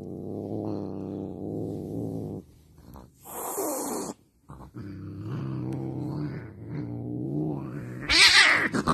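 Domestic cat growling low and long, its pitch wavering, with a short hiss and yowl about three seconds in and a loud hissing yowl near the end, the loudest moment; an angry cat's warning.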